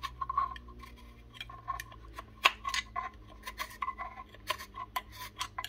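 Thin screwdriver clicking and scraping inside a Milwaukee M18CV vacuum's brushed DC motor as the fan and shaft are worked round by hand: a run of irregular light metallic ticks, several a second, with one sharper click about two and a half seconds in. The shaft is going tight then loose again, which the repairer puts down to grit jammed in the fan or a seizing motor bearing.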